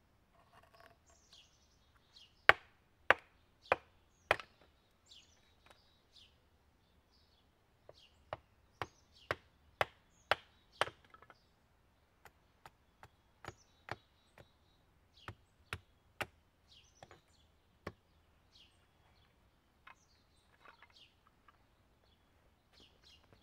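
A hatchet chopping and splitting thin sticks of wood on a stump chopping block: sharp single blows, four loud ones a few seconds in, then a quicker run of blows and lighter taps later. Small birds chirp faintly between the strokes.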